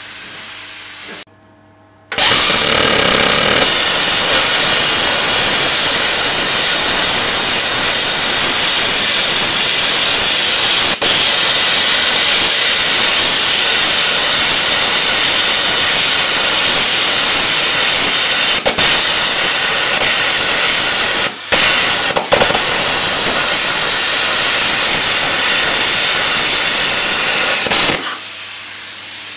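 Air plasma cutter (LGK-63IGBT) cutting steel plate: a loud steady hiss of the arc and compressed air that starts about two seconds in, breaks off briefly twice near the end, and stops about a second before the end. Before and after the cut there is a quieter hiss with a low hum.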